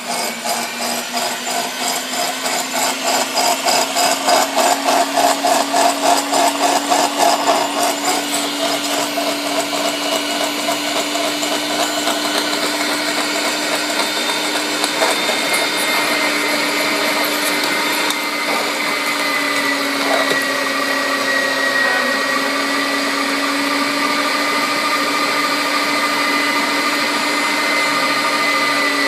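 Electric meat grinder running while grinding beef: a steady motor hum with a regular pulsing through the first several seconds, settling into smooth, even running.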